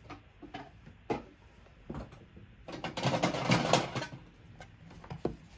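Crinkling and rustling of a sealed booster pack's wrapper being handled, with scattered light clicks and a louder burst of crackle about three seconds in.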